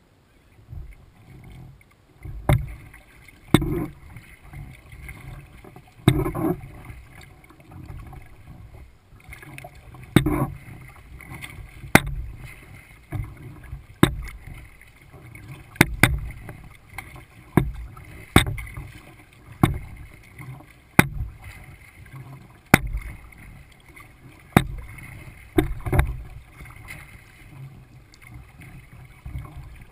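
Kayak paddling, heard from the boat's bow deck: a sharp click with a splash every one and a half to two seconds as the paddle strokes, over low water and wind rumble.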